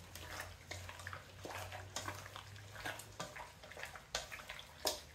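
Hands squishing and turning raw, spice-coated chicken thighs in a stainless steel bowl: irregular wet squelches and slaps, with a sharper knock against the bowl near the end.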